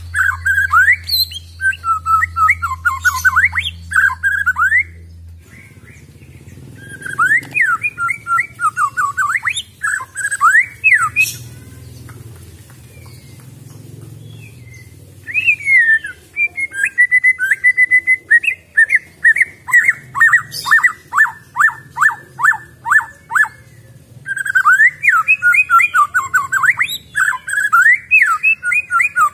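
White-rumped shama (murai batu) singing the natural song of a wild-caught bird: loud runs of quick rising and falling whistled notes, with a short lull about halfway. Past the middle comes a long series of rapid repeated notes, about three a second.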